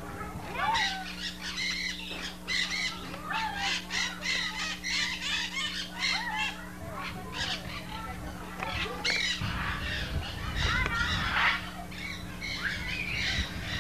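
Many birds chirping and squawking in quick, overlapping high calls that thin out about nine seconds in.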